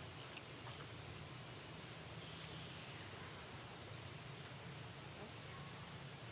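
Outdoor ambience: a steady high insect trill, with a few short high chirps about two seconds in and again near four seconds, over a low background rumble.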